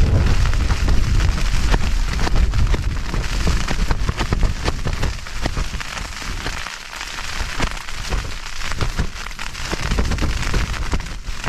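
Rain hitting the fabric of a bothy bag emergency shelter: many sharp taps over a steady hiss. Gusty wind adds a low rumble that dips for a couple of seconds after the middle, then returns.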